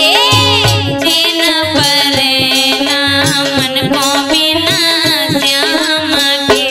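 Instrumental stretch of a Hindi malhar folk song: a hand-drum beat under a steady held drone, with a melody line that bends and wavers over it.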